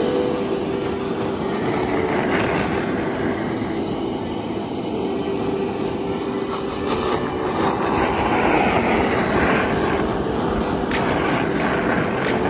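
Handheld gas torch burning with a steady rushing hiss as its flame is played over cinnamon-dusted slices on a grill grate.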